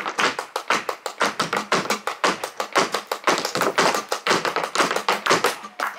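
Flamenco footwork (zapateado): shoes striking a wooden dance board in a rapid, even run of sharp taps, without singing.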